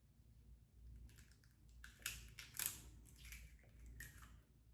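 A few faint taps and cracks of an egg being knocked against a bowl to break its shell, the clearest two about two seconds in, half a second apart.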